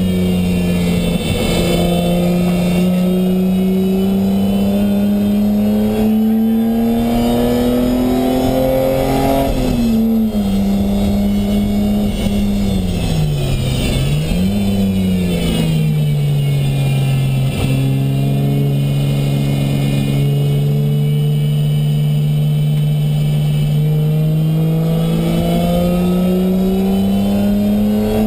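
BMW E30 325is's 2.5-litre straight-six heard from inside the cabin while lapping a track. The revs climb steadily, drop sharply about ten seconds in, dip and jump back up around fourteen seconds, hold low, then climb again toward the end.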